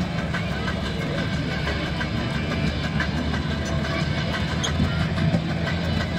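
Off-road trial 4x4's engine idling at a steady low rumble while the vehicle stands still, with a murmur of crowd voices behind it.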